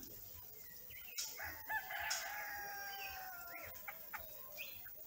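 A rooster crowing once, one long drawn-out call that falls slightly at its end, followed by a few short, high bird chirps.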